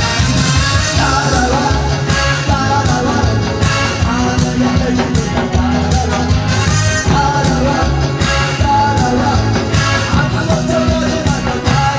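Trot song: a voice singing over loud backing music with a steady beat.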